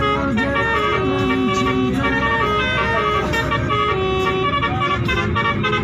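Indonesian bus 'telolet' multi-tone air horn playing a melody of held notes, with a few short pitch dips between notes, over the rumble of the bus engine.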